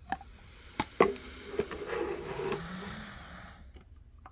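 Clear red plastic case of a Lee bullet sizing kit being handled: a few clicks and a sharp knock about a second in, then rubbing and rattling that fades away.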